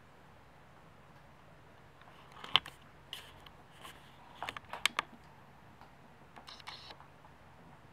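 Pet rabbit crunching dry pellet treats: scattered clusters of short, crisp crunches, the loudest about two and a half seconds in.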